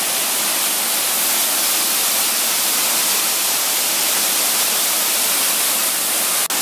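Waterfall rushing, a steady hiss of falling water heard close up, with a split-second dropout near the end.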